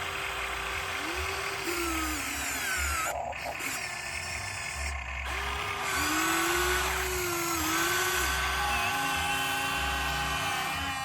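Remote-control excavator's electric motors whining as it works, several tones gliding up and down in pitch as the machine moves. The sound briefly drops out twice, a little after 3 seconds and about 5 seconds in.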